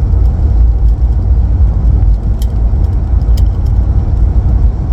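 Road noise in a moving vehicle: a loud, steady low rumble with light rattles and clicks scattered through it.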